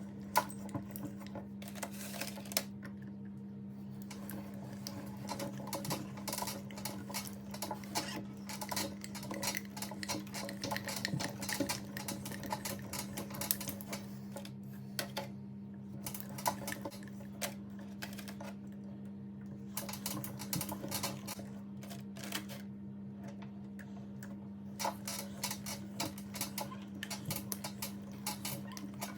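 Meat grinder motor humming steadily while teeth-shaped gummy candy is fed through it, with dense, irregular clicking and crackling from the candy being ground. The clicking thins out briefly a few times.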